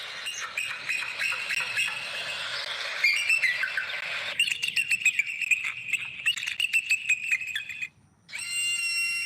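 Bald eagle calls: a rapid string of thin, high piping chirps from about four seconds in, over mixed bird calls, breaking off abruptly near eight seconds. A steady high whistled note follows.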